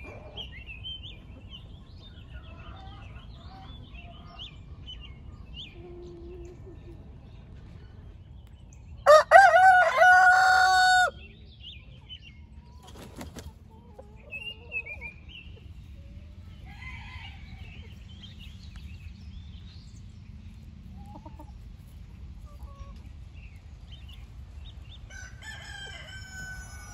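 Backyard chickens clucking and chirping softly, with a rooster crowing once, loud, about nine seconds in; another fainter crow-like call comes near the end.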